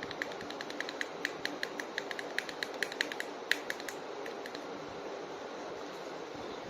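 Rapid, irregular run of light clicks, about five a second, from plastic action figures being handled. The clicks stop after about four and a half seconds, leaving faint hiss.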